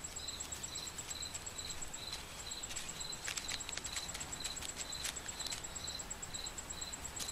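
A steady high-pitched insect chirping, about three even chirps a second over a constant higher ringing tone, with scattered faint ticks.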